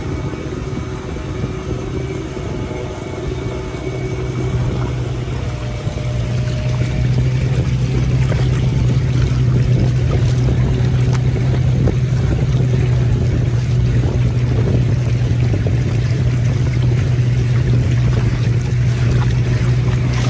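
Motorboat engine running with a steady low drone that grows louder about five seconds in, with water rushing and splashing past the boat.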